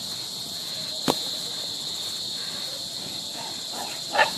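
Crickets chirring in a steady, high, even tone, with one sharp knock about a second in.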